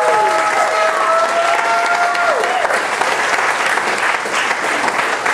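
An audience applauding in a hall. In the first couple of seconds, long drawn-out whoops from the crowd ride over the clapping.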